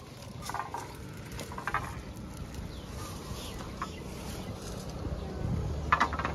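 Kitten up a tree giving a few short, high mews, spaced a second or two apart, over a low background rumble.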